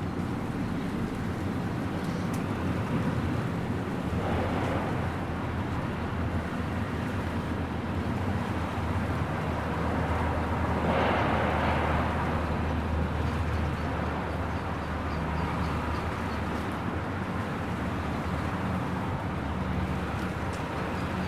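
Steady suburban rain with a low traffic hum underneath. Two swells of hiss come and go, about four seconds in and again around eleven seconds, like vehicles passing on a wet road.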